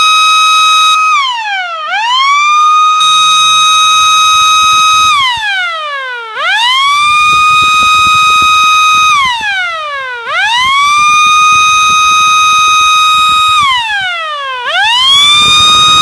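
Small electric air raid siren sounding a quick attack signal. Its loud, shrill tone winds up to a steady high pitch, holds about three seconds, then winds down and straight back up, cycling about every four seconds.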